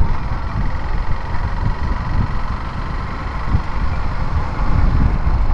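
Motorcycle running on the road: a steady low rumble of engine and road noise.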